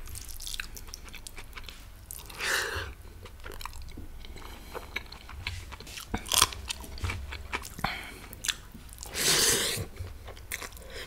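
Close-miked chewing and biting: a person eating, with many wet mouth clicks and two longer, louder mouth sounds, about two seconds in and near the end.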